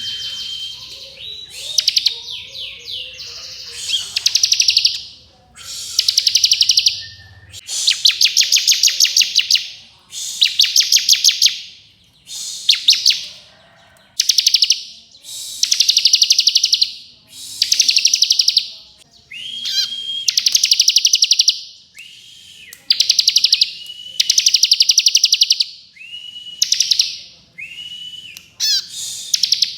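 Bar-winged prinia (ciblek kristal) singing its rapid trilling 'ngebren' song. Fast, dense, high trills about a second long repeat every couple of seconds, some opening with a short level whistle note.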